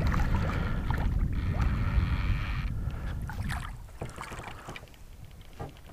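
Low wind rumble on the microphone, with a bass boat's electric bow trolling motor whining for a short spell about a second in. Small clicks follow as a hooked crappie is reeled to the boat on a spinning rod.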